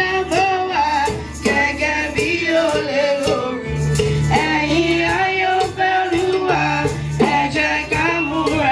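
Church music: voices singing a melody over held bass notes and a steady percussion beat.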